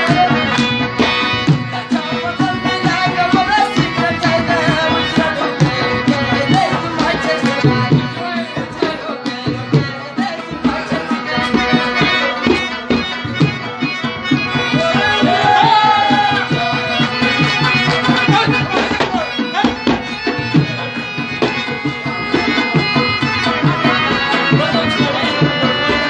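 Instrumental Pashto folk music: two harmoniums sustain and play a melody over a fast hand-drum rhythm, with a rabab among them.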